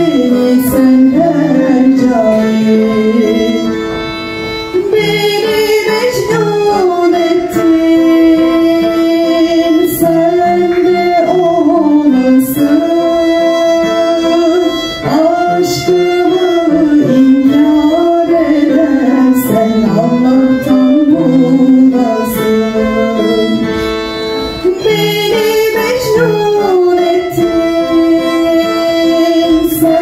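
Music: a song with singing over instrumental backing, in long held notes with a wavering pitch.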